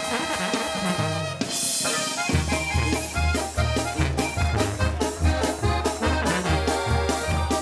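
Regional Mexican band with accordion, sousaphone, trumpets, trombones and electric guitar playing an instrumental intro. A steady bass beat of about two a second comes in a little over two seconds in.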